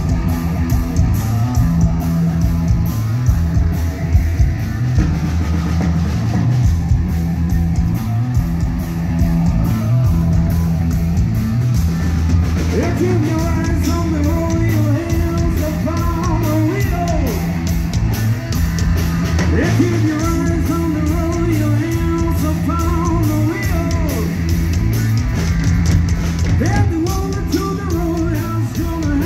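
Live rock band playing with electric guitar, bass and drum kit at a steady beat through a PA. A melody line comes in over the band about twelve seconds in.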